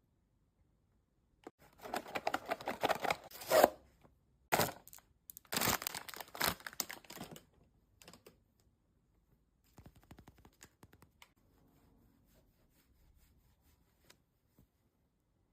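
Packaging of a Labubu blind box being torn open and crinkled, in two rough stretches with a sharp rip between them, then faint light clicks and rustles.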